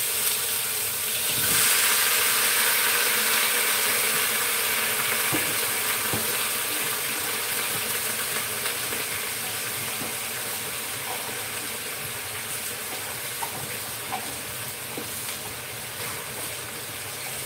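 Food sizzling as it fries in a hot pan: a steady hiss with a few small pops, a little louder about a second and a half in, then slowly dying down.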